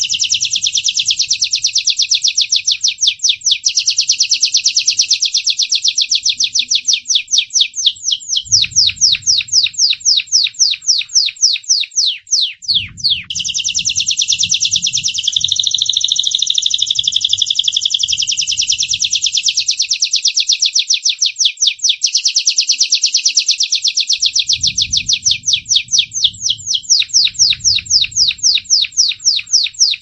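Male Gloster canary singing a long, unbroken song of warbled phrases and fast rolling trills of rapidly repeated notes, with a brief break a little before halfway.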